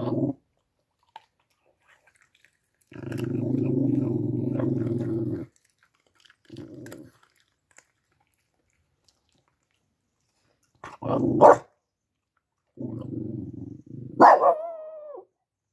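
Small dog growling in low rumbling spells with silent pauses between, then two sharp barks about eleven seconds in. Another growl near the end breaks into a bark that slides down in pitch.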